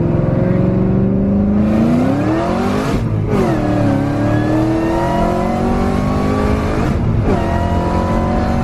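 Supercharged 5.2-litre V8 of a 2020 Ford Mustang Shelby GT500 under hard acceleration, heard from inside the cabin: the revs climb, drop sharply with a gear change about three seconds in, climb again, and drop with another shift near seven seconds. The rear tyres spin a little as it pulls.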